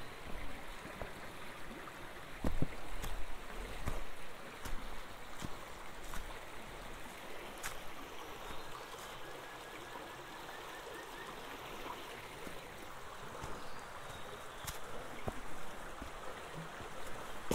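Shallow mountain stream running over rocks in a steady rush, with footsteps on a rocky path scattered with dry leaves every second or so.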